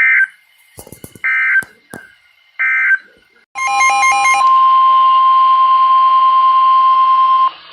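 Three short digital data bursts of an Emergency Alert System end-of-message code, about a second and a quarter apart, close out a NOAA Weather Radio warning. After a short gap, a brief pulsing beep pattern leads into the steady NOAA Weather Radio warning alarm tone of about 1050 Hz, held for about four seconds and played through a small radio speaker.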